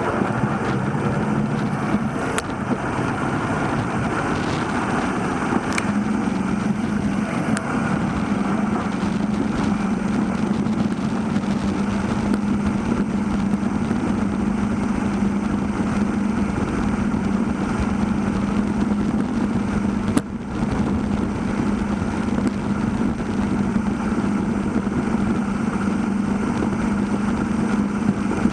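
Steady wind and road rumble on a bicycle's handlebar-mounted camera microphone while riding, with a constant low hum.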